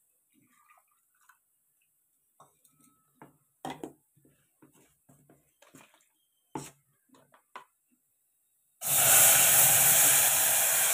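Liquid greens puree poured into a hot pan of frying garlic and cumin, hitting it about nine seconds in with a sudden loud sizzle and hiss of steam that then tapers off. Before that, faint clinks and taps of a steel mixer jar being handled.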